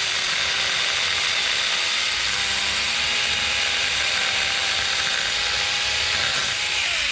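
Saker battery-powered mini chainsaw running steadily at full speed while cutting through a stump, its motor starting to wind down right at the end as the trigger is let go.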